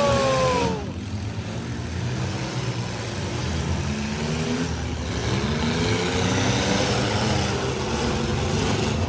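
Demolition derby car engines running and revving in the arena, their pitch rising and falling a few times. A loud falling tone cuts off under a second in.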